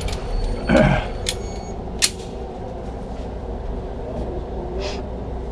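Indoor range's target carrier running the target out on its track, with a steady low motor hum. A short whine falls in pitch about a second in, and a few sharp cracks follow, the clearest about two seconds in.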